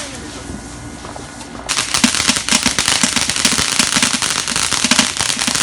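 Consumer firecrackers going off in a fast, dense crackle of pops that starts suddenly about a second and a half in and keeps going.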